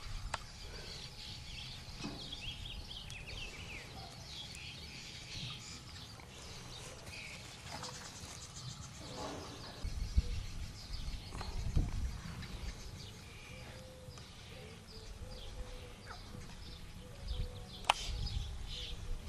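Quiet outdoor ambience with small birds chirping, most densely in the first few seconds. Low rumbles and thumps come about halfway through and again near the end, with one sharp click near the end.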